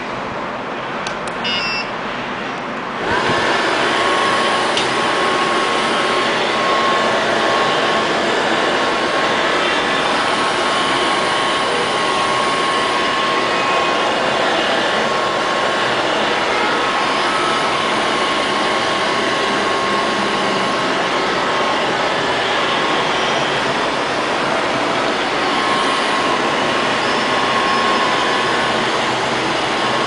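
LL-302 robot vacuum cleaner: a few short beeps as its control button is pressed, then about three seconds in its suction motor starts and runs steadily with a faint whining tone.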